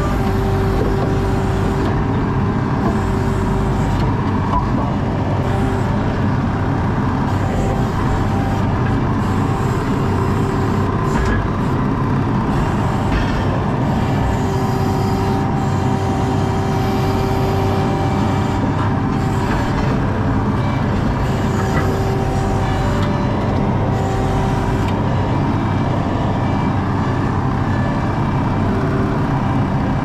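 ASV RT-40 compact track loader's diesel engine running steadily under load, heard from inside the cab, with a higher whine that comes and goes several times.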